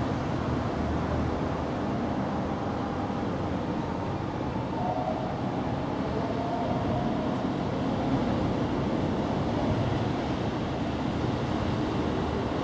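Steady low rumble with a hiss over it: outdoor background noise, with no distinct event standing out.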